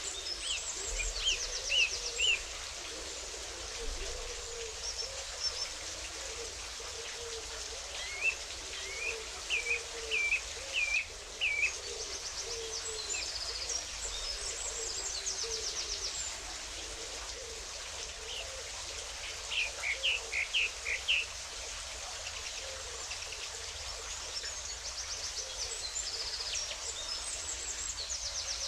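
Wild birds calling over a steady rush of water. Short rising whistled notes come in three quick clusters: near the start, about a third of the way in, and past the middle. Fast high trills come and go, and fainter low calls sound underneath.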